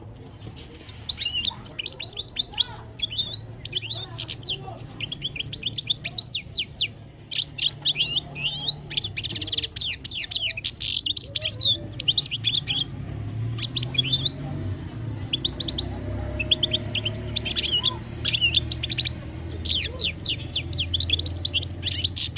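European goldfinch singing: fast twittering phrases of quick, high, sliding notes, broken by short pauses.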